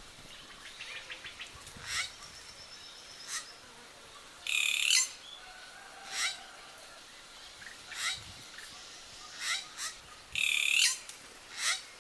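Racket-tailed treepie calling: a run of short, sharp notes spread across several seconds, with two longer, louder calls, one about four and a half seconds in and one near the end.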